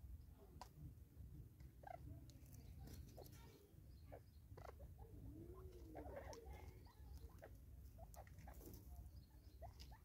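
Faint, irregular taps and clicks of Natal spurfowl beaks pecking at food in a glass jar on a wooden stump, over a low steady rumble.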